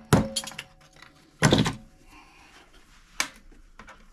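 Metal striking steel as steel is knocked off copper parts salvaged from a microwave: a sharp knock right at the start with a short metallic ring, a heavier knock about one and a half seconds in, and two lighter knocks near the end.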